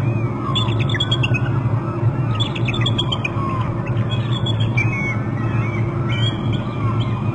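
Bald eagles calling: several bursts of rapid, high chattering notes over a steady low hum.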